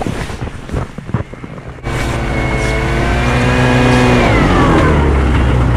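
Snowmobile engine: quiet for the first two seconds, then the throttle opens abruptly and it runs loud at a steady high pitch, dropping in pitch a little past the four-second mark.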